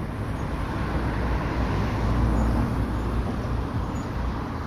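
Road traffic noise: a vehicle passing on the street, its rumble and tyre hiss swelling about two seconds in and then easing off.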